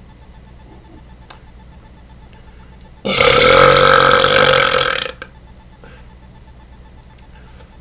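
One long, loud deliberate burp lasting about two seconds, starting about three seconds in and cutting off sharply.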